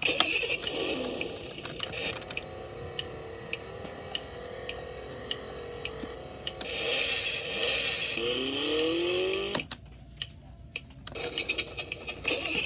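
Children's toy driving dashboard playing electronic sound effects from its small speaker as its buttons are pressed: a warbling tone, regular ticking about twice a second, and a rising glide that cuts off suddenly about two-thirds through, then more warbling near the end.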